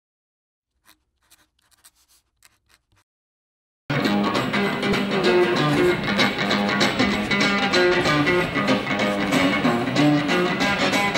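Electric guitar music that starts abruptly about four seconds in, after near silence broken only by a few faint ticks.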